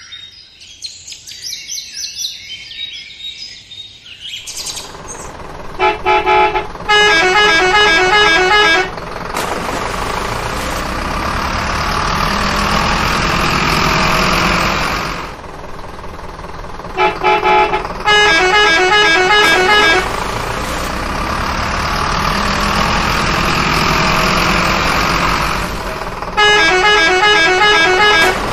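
Birds chirping for the first few seconds, then a looped truck sound effect: bursts of rapid, repeated horn honks three times, about ten seconds apart, with a steady engine-like vehicle noise swelling between them.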